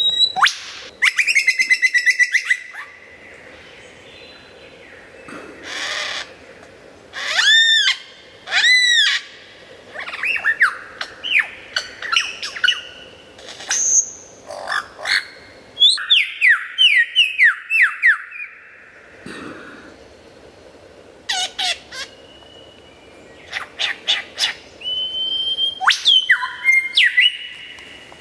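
Lyrebird singing a loud, varied song: quick runs of repeated notes, arching whistles and downward-sweeping notes, in phrases broken by short pauses.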